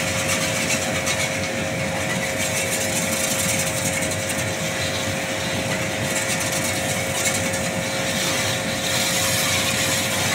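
A motor running steadily with a hiss and a constant hum.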